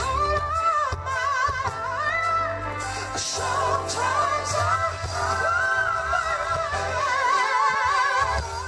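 Male R&B singer's voice in drawn-out ad-lib runs with a wide vibrato, over a live band of drums, bass and keyboards.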